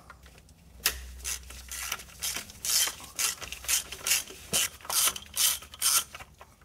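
Hand ratchet clicking in about a dozen short runs, roughly two a second, as a bit socket on an extension backs out a transmission filter bolt.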